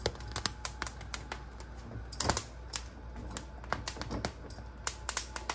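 Poblano chile skins crackling and popping as they char directly over open gas burner flames: many small irregular crackles, with one louder click about two seconds in.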